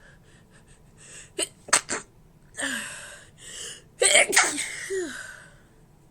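A woman's series of stifled sneezes: a few quick catching breaths, three short sharp stifled sneezes close together, then longer, louder breathy sneeze bursts about four seconds in.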